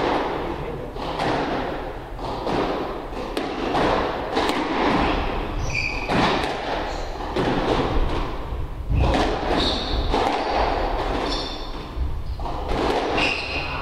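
Squash rally: the ball is struck by rackets and thuds off the court walls again and again, with a few short high squeaks in between.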